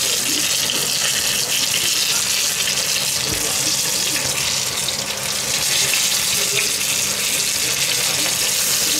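Breaded schnitzels frying in clarified butter in a cast-iron pan: a steady sizzle.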